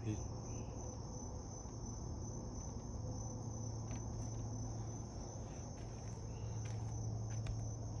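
Insects trilling continuously in one high, steady pitch, faint, over a low steady hum, with a few soft ticks.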